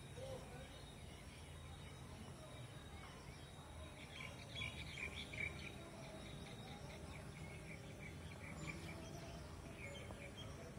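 Small birds chirping in quick runs, mostly about four to six seconds in and again near the end, over a faint, steady low background rumble.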